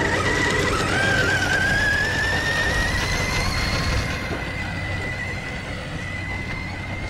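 Electric whine of a 1/5-scale Arrma Outcast RC car's brushless motor and drivetrain as it drives. The pitch climbs over the first few seconds, then holds steady and slowly fades near the end.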